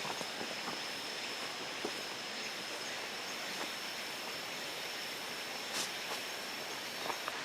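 Quiet rural ambience with an insect calling one steady high note that stops near the end, over faint scattered rustles and ticks; a brief rustle about six seconds in.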